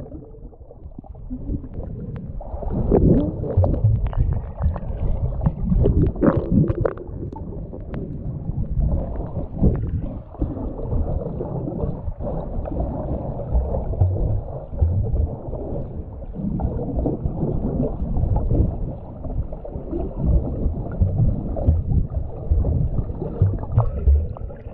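Underwater sound heard through a GoPro's waterproof housing: a muffled, low rumble of moving water with bubbly gurgles, and a few brief brighter bubble sounds early on.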